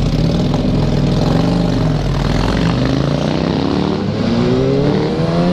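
Motorcycle engines under way. The engine note rises and falls, then climbs steadily in pitch through the second half as the bikes accelerate, over a constant rush of riding wind.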